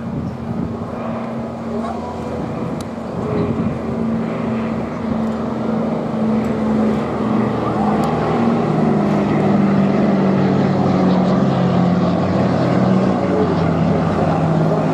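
Douglas C-47 Dakota's twin radial engines running in a low flypast, growing louder as it approaches, with the engine pitch dropping slightly about halfway through as it passes.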